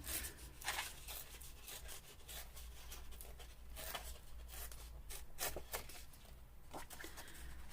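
Paper being handled on a craft table: faint rustling with scattered light ticks and crinkles, a few slightly louder ones about a second in and again around four and five and a half seconds in.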